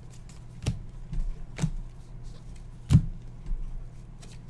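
Baseball cards being flipped through and handled: about half a dozen sharp clicks and snaps of card stock and a plastic card holder, the loudest about three seconds in, over a low steady hum.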